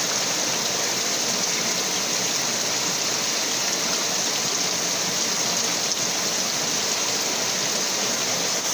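River water flowing, a steady even rushing with no break.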